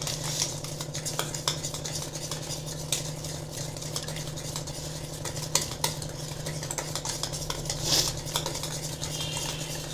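Wire whisk beating a thick flour-and-semolina batter in a stainless steel bowl: steady scraping and swishing with irregular clicks of the wires against the bowl.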